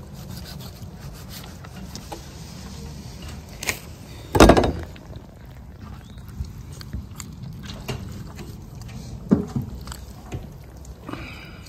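Wood scraping and rubbing, with scattered light knocks and one heavy thump about four and a half seconds in.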